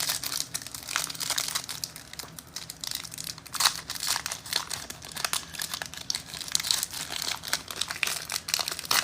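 Foil trading-card pack wrappers crinkling and tearing as packs are ripped open and handled, a busy run of irregular crinkles.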